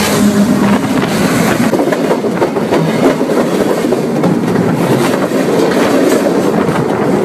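Train cars rolling directly over a phone lying between the rails: a loud, continuous rumble of steel wheels on the track, thick with rapid clatter.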